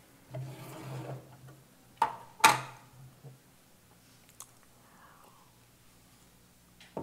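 A mug being picked up from a wooden pulpit to drink from: two sharp knocks about two seconds in, the second the louder, then a faint click and near quiet while it is drunk from.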